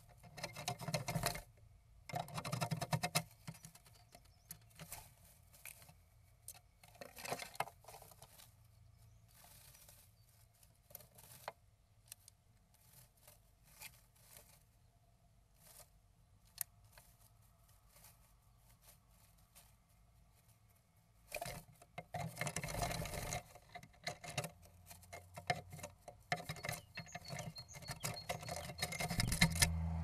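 A great tit rustling and scratching in the moss of its nest inside a wooden nestbox while nest-building. The sound comes in spells of quick scratchy clicks and rustles, with the longest and loudest spell about two-thirds of the way through.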